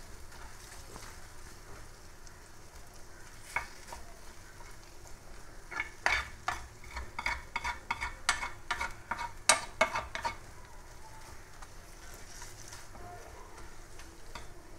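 Maggi instant noodles frying in oil in a metal pan with a faint steady sizzle, while a spoon stirs and scrapes them across the pan bottom in a quick run of strokes from about six to ten seconds in. The noodles are sticking to the bottom of the pan.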